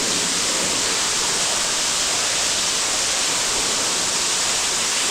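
Steady roar of a waterfall falling inside a cave, close by.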